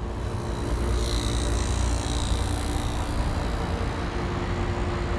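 Newly installed Goodman 2.5-ton condensing unit running steadily just after start-up: compressor hum under the whoosh of the outdoor fan.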